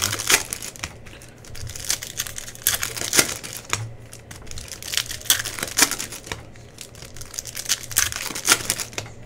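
Plastic-foil trading card pack wrappers crinkling and tearing as basketball card packs are opened, with many sharp, irregular crackles and clicks.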